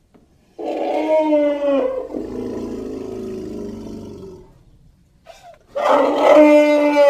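Elephant trumpeting twice: a loud, brassy call that dips slightly in pitch and trails off into a rough, lower rumble, then a second trumpet call begins near the end.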